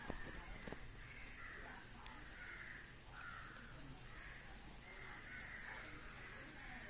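Crows cawing faintly and repeatedly, a run of short calls one after another, with a few soft clicks in the first second.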